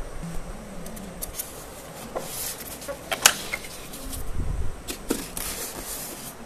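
Handling noise from unpacking a microwave oven: packaging rustling, with scattered clicks and knocks as parts are lifted out, one sharp click about three seconds in.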